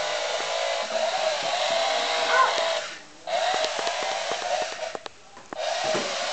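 Small electric motor of a toy chainsaw running with a steady buzzing whir. It cuts out briefly about three seconds in and again for about half a second around five seconds in, then starts up again.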